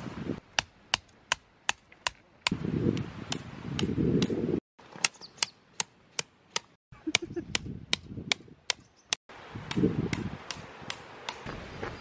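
Hammer driving a tent peg into gravel: a steady run of sharp metallic knocks, about two or three a second, pausing briefly a few times. A low rumble comes and goes between the strikes.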